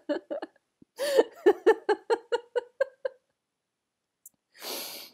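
A person laughing in a fit of rapid, clipped laughs, about four to five a second, in two runs, followed near the end by a noisy breath.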